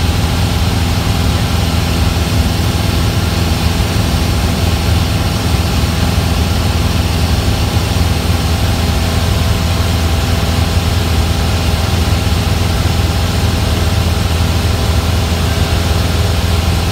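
Single-engine Cessna's piston engine and propeller heard from inside the cockpit in level flight, running steadily at an even pitch over a constant rush of noise.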